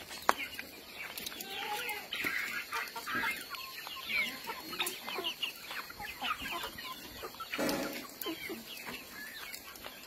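A flock of chickens clucking while they feed, with many short overlapping calls. A brief louder rush of noise comes about three-quarters of the way through.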